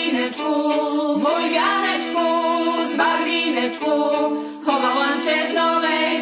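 A group of women's voices singing a traditional Lower Silesian folk song together in harmony, the voices carrying the music.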